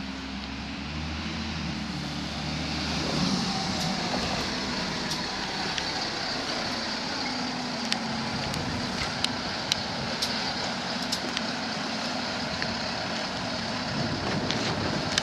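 Diesel engine of an Optare Versa single-deck bus running at low speed as the bus creeps across the depot yard into the bus wash, with a steady hiss above the engine hum.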